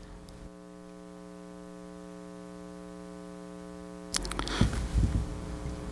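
Steady electrical mains hum from the microphone and sound system, with soft low bumps and rustling in the last couple of seconds.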